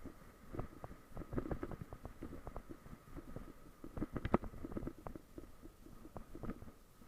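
Irregular knocking and rattling over a low rumble, from a bike-mounted camera and bicycle jolting over a rough dirt trail, with a faint steady high tone underneath.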